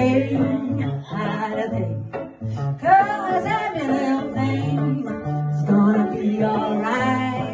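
Singing voice over a guitar accompaniment with a stepping bass line.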